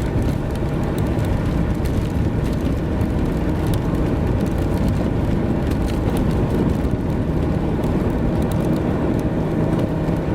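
Steady noise of a moving vehicle, a low rumble of engine and road with a faint steady hum.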